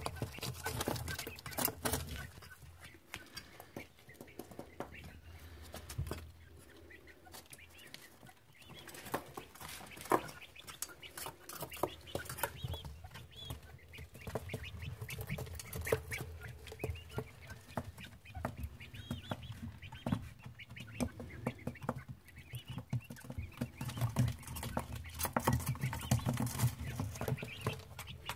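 Three-week-old Japanese quail chicks in a brooder, calling with soft chirps among many short sharp clicks of pecking and scratching.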